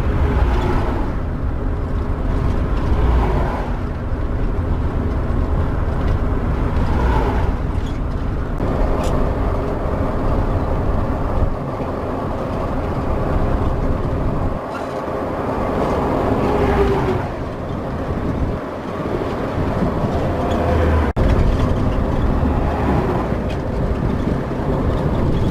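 Bus motorhome driving along a highway: steady engine and road noise, with small rises and falls in level.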